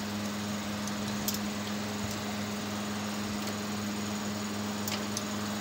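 A steady, even mechanical hum on a low tone, with no starts, stops or changes in pitch.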